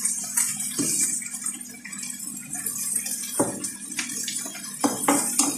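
Chicken and garlic sizzling in a frying pan with a steady hiss. A metal slotted spatula stirs them, scraping and knocking against the pan a few times in the second half.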